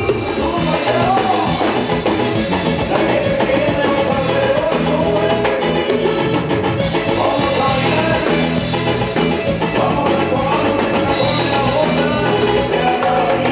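A live band playing an upbeat dance tune on trombones, drum kit and keyboard.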